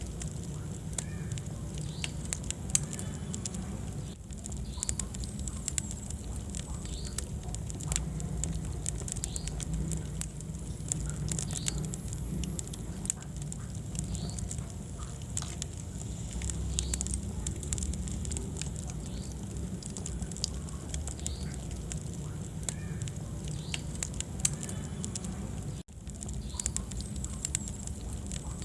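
Wood fire burning in a fireplace: a steady low rumble of flames with frequent sharp crackles and pops. The sound cuts out for an instant near the end.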